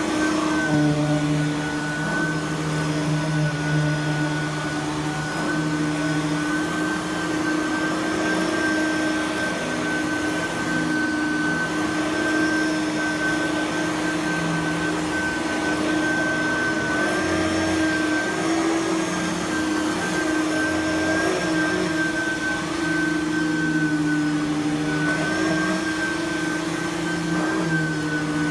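Simplicity Freedom lightweight direct-air upright vacuum running steadily over carpet, its motor giving a steady high whine over the rush of air.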